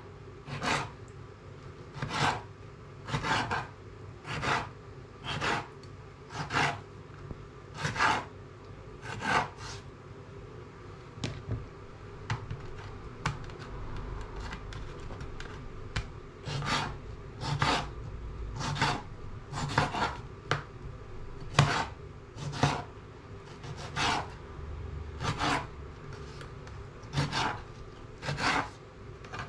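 Large kitchen knife slicing cucumber and other vegetables on a plastic chopping board, one cut about every second, each a short scraping stroke that ends on the board. The cutting slows and softens for a few seconds about ten seconds in, then picks up again.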